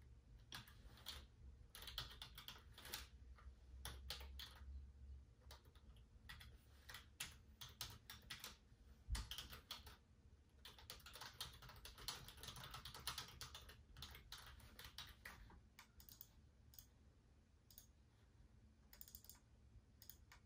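Faint typing on a computer keyboard: irregular runs of key clicks with short pauses. A single dull low thump about nine seconds in.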